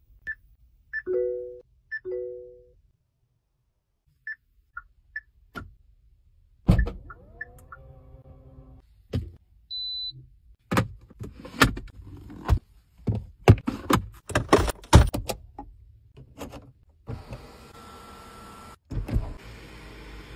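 Car cabin controls being worked: two short two-tone electronic chimes, then a motor whir that rises in pitch, a run of button clicks and a brief high beep. Near the end comes a steady whir from an electric motor driving the panoramic sunroof.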